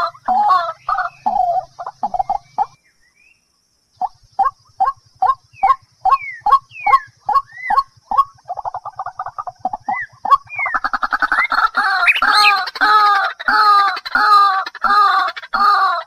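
White-breasted waterhen calling: a run of short, repeated calls, about three a second, that stops abruptly. After about a second of quiet, single upward-sliding notes follow, then a quick rattle, then a dense, loud run of repeated calls that fills the rest.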